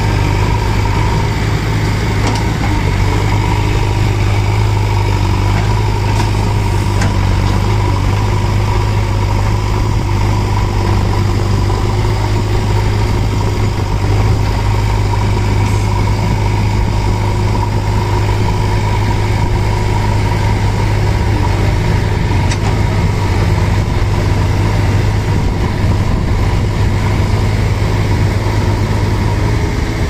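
JCB 3DX backhoe loader's diesel engine running at a steady speed with a deep, even drone.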